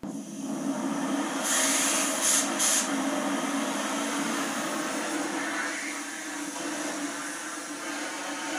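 Oxy-acetylene cutting torch flame running with a steady, loud hiss. About a second and a half in the hiss turns louder and higher, with two short sharp blasts shortly after.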